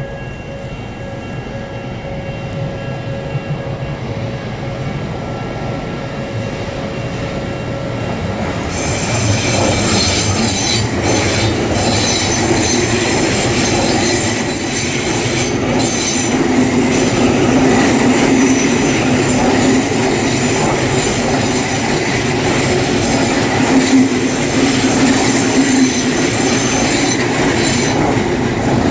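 An Odakyu commuter train passing over a level crossing: it comes in about nine seconds in and runs past loudly for most of the rest, with its wheels clattering over the rail joints and a high squeal from the wheels. Before it arrives, steady tones of the crossing's warning bell are heard.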